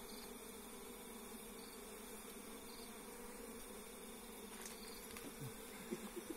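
Honeybees buzzing in a steady low drone as they crawl over the hive box and a bare hand, with a few faint ticks near the end.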